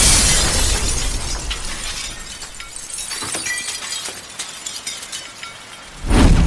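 A loud crash at the start that dies away slowly over a few seconds, with a few faint ticks and a brief tone in the quiet that follows; a second loud crash comes near the end, leading back into the song's music.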